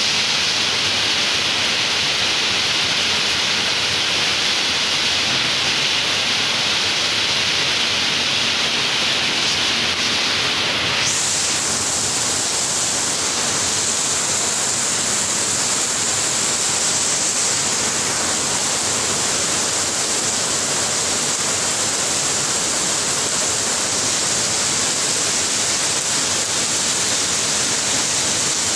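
Steady rain hissing, with no separate drops or knocks standing out; its tone changes abruptly about eleven seconds in.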